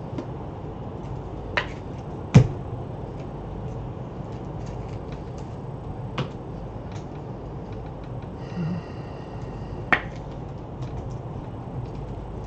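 Trading cards being slid apart and flipped through by hand, giving a few sharp snaps and clicks (the loudest about two and a half seconds in) and softer ticks, over a steady low hum. A brief tone sounds about eight and a half seconds in.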